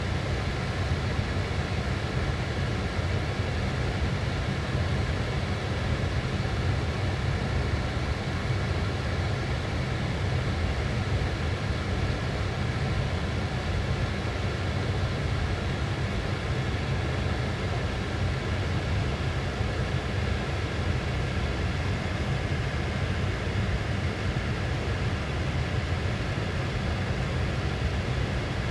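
Car air conditioning running with a steady hum, a deep rumble under a faint airy hiss, unchanging throughout.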